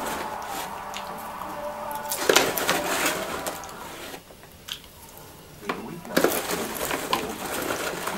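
Paper popcorn bag rustling and crinkling as a hand rummages inside it, in two louder bouts about two seconds in and about six seconds in.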